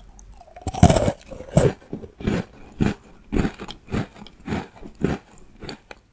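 A crisp Earl Grey butter cookie bitten into with one loud crunch about a second in, then chewed with steady crunching chews, a little under two a second.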